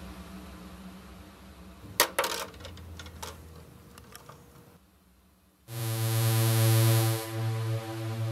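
Soft synthesizer music, broken about two seconds in by a sharp clack and a few smaller ticks, a plastic cup hitting concrete and bouncing. After a brief near-quiet gap, louder electronic music comes in.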